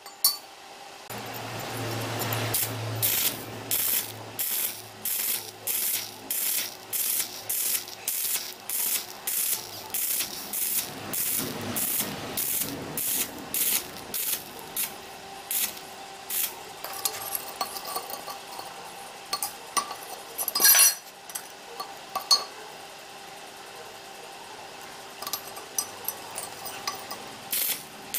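Repeated rasping strokes of a hand tool worked over rusty metal, about two strokes a second for the first half, then sparser strokes over a steady faint hum, with one louder knock about twenty seconds in.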